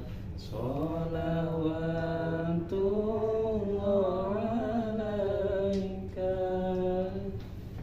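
A solo voice chanting long held notes that waver and glide in pitch, with short breaths between phrases.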